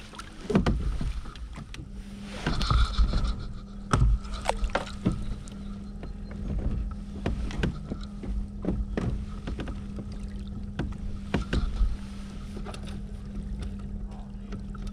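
A kayak being paddled: paddle strokes in the water with scattered knocks and a louder thump about four seconds in. A steady low hum sets in about a second in.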